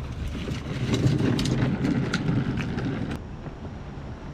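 Footsteps on a paved path, about three a second, over a low rumble. Near the end it cuts off abruptly to a quieter steady hiss.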